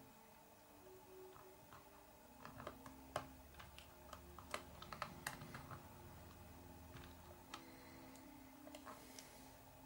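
Faint, irregular clicks and taps of small parts being handled and fitted by hand on a radio-controlled truck's chassis.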